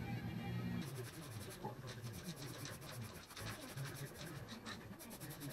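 Background music cuts off about a second in. It is followed by a quick, even run of sharp rattling clicks, the mixing ball of a spray-paint can being shaken, with a short pause and a denser burst near the end.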